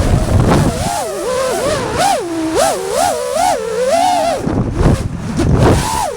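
FPV racing quadcopter's brushless motors whining, the pitch swooping up and down several times a second as the throttle is worked, with a stretch of rushing air noise near the end where the motors drop back.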